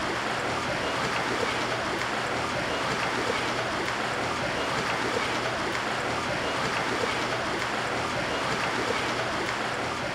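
Pool water splashing and churning right at a microphone held at the water's surface as a swimmer swims past, a steady rushing wash with a faint low hum beneath.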